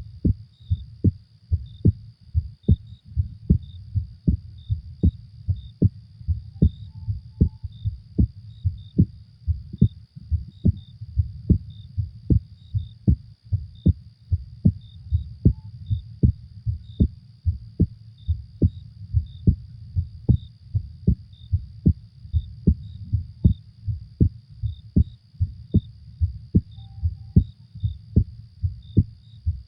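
Heartbeat: steady, evenly repeating low lub-dub thumps, over a faint high night-ambience bed of small repeated chirps.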